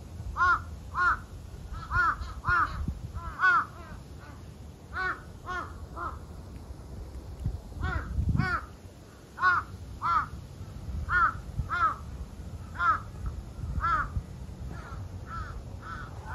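Birds calling over and over: short, arched calls, one or two a second, continuing without a break.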